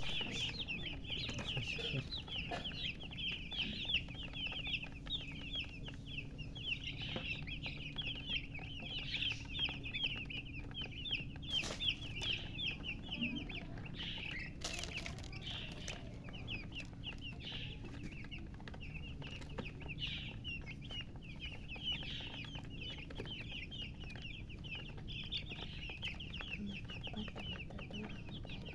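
A group of newly hatched chicks peeping loudly: many short, high, downward-sliding chirps overlapping without a break, over a steady low hum.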